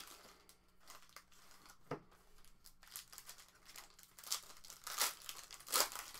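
Plastic wrappers of sports card packs crinkling and tearing in short irregular bursts as the packs are opened, with a light knock about two seconds in.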